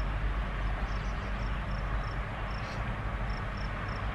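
Steady low hum and hiss inside a car, with short high chirps repeating a few times a second, often in pairs.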